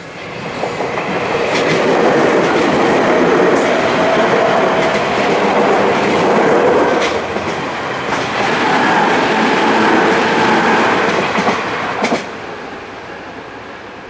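Tobu Tojo Line electric commuter train passing close by over a level crossing, its wheels clattering over the rail joints with scattered sharp clicks. The noise builds over the first couple of seconds, holds, and drops away suddenly about twelve seconds in as the last car clears.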